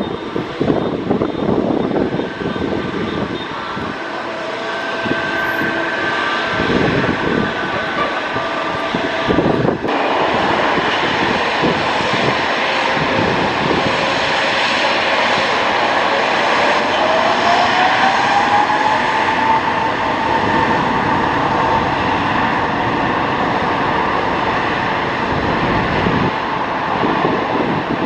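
Twin turbofan engines of a Boeing 777-200ER airliner running on the runway, a steady jet noise. About two-thirds of the way through, a whine climbs in pitch and then holds as the engines spool up to takeoff thrust.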